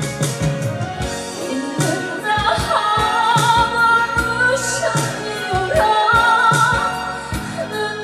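A woman singing a slow Korean ballad with a wide vibrato on held notes, over band accompaniment with a steady drum beat.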